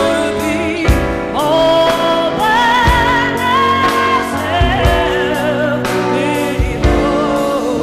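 Live band performance: a woman singing long held notes with vibrato over keyboards and drums in a slow soul-style ballad.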